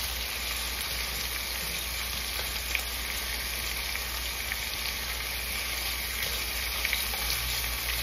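Lamb chops sizzling steadily in hot oil in a cast-iron skillet, with a few light clicks of metal tongs against the pan and chops as they are turned.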